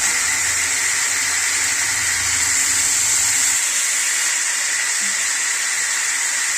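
Chicken frying in mustard oil in a pan, a steady sizzling hiss.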